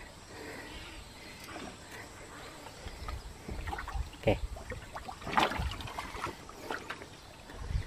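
Faint water sloshing with a few short splashes and knocks as a freshly caught snakehead moves about in a shallow box of water, over a low rumble.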